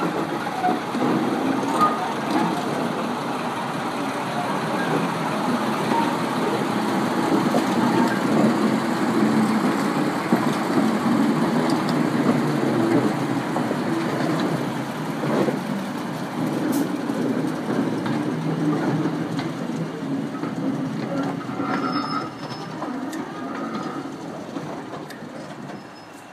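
Class 14 diesel-hydraulic shunter's Paxman V6 engine working steadily as it hauls a short train of wagons past, the wagons' wheels clattering on the rails. The sound fades toward the end as the train moves away, with a few short wheel squeals.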